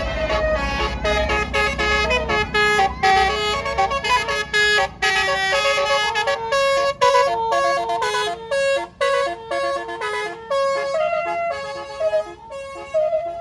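Bus basuri musical air horn playing a fast tune of short, stepping notes. A low engine rumble underneath fades out in the first few seconds.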